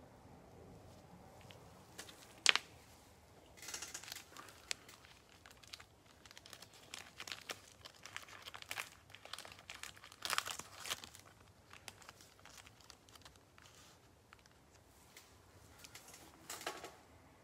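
Shrink-wrapped trading-card boxes being handled: plastic wrap crinkling in irregular bursts, with scattered small clicks and one sharp tap about two and a half seconds in.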